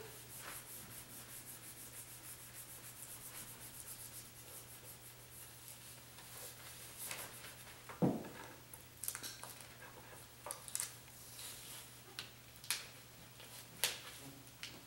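Fingertips rubbing vinyl letter stickers down onto a painted wooden board: a soft, even run of rubbing strokes. It is followed by scattered light taps and clicks, with one louder knock about halfway through.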